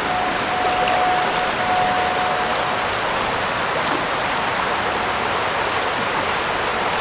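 Steady hiss of water, rain or running floodwater, over a flooded parking lot. A thin steady tone sounds for the first three seconds or so.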